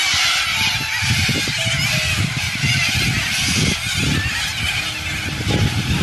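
A large flock of corellas screeching, a dense harsh chorus of many overlapping calls, with a low rumble underneath.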